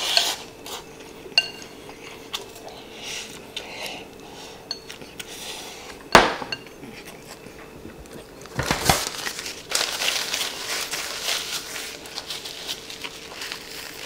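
Chopsticks clicking and scraping against a rice bowl as rice is shoveled into the mouth, with one sharp clack about six seconds in. In the second half there is a denser stretch of rustling and clatter.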